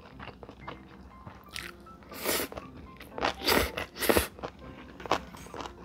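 Close-miked crunching bites of seasoned soybean sprouts (kongnamul muchim) being chewed, with a few sharp, loud crunches clustered around the middle.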